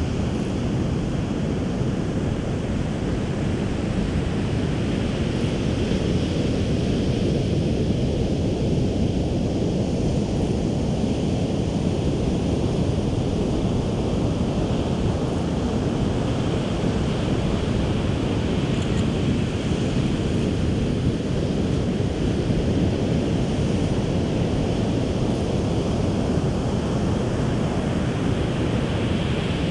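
Ocean surf breaking on a sandy beach, with wind buffeting the microphone: a steady low rush, and the hiss of the waves swelling and fading roughly every ten seconds.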